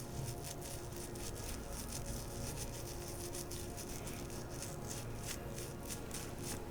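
Oily hands rubbing and massaging skin, giving quick, repeated slick, crackly sounds.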